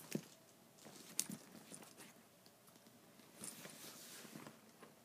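Faint handling noise of a leather satchel being turned over in the hands: soft rustles with scattered clicks and light clinks of its brass hardware.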